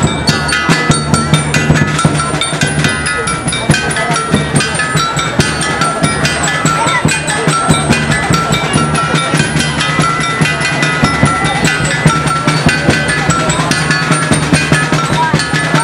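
Loud drum-driven music: rapid, even drumbeats over a steady low drone, with short higher notes repeating on top.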